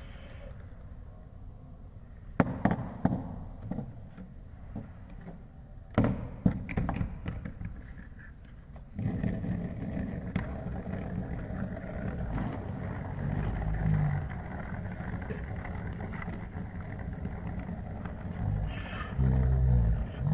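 Sharp clicks and knocks of a fidget spinner being handled, then from about nine seconds in a steady rough rattling scrape as it spins with its outer weights taken out, which makes it shake.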